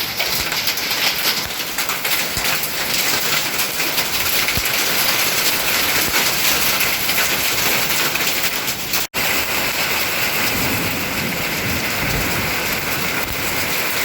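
Heavy rain mixed with hail coming down hard: a dense, steady pattering of countless small hits. It breaks off for an instant about nine seconds in.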